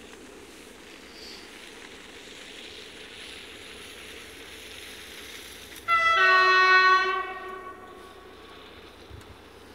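Freight train locomotive horn giving one blast about six seconds in, about a second and a half long, cutting in abruptly and fading out, over a steady background hiss. It is the warning a train sounds on approaching an unguarded level crossing.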